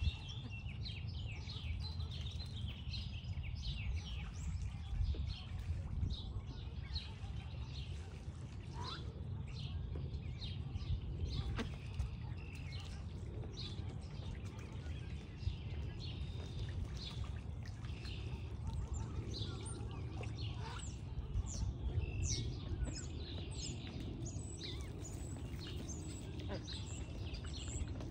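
Small birds chirping and singing in quick, short notes throughout, over a steady low rumble.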